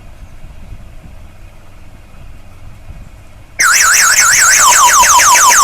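Motorcycle security alarm unit's electronic siren going off while the anti-theft system is armed. It starts suddenly, very loud, about three and a half seconds in: a fast high warble that changes into quick repeated falling sweeps, about five a second.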